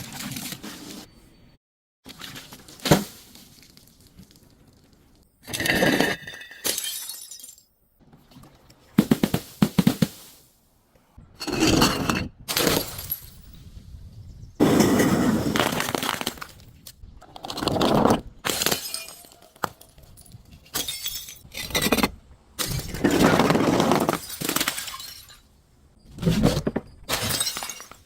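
Glass bottles breaking and being crushed: a string of separate crunching, shattering events, about a dozen of them, each lasting up to a couple of seconds with short pauses between.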